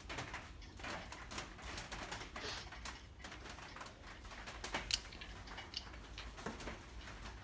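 Faint, scattered clicks and taps of steel tools being handled: a socket and a wobble extension knocking together as they are fitted and tilted, with one sharper click about five seconds in.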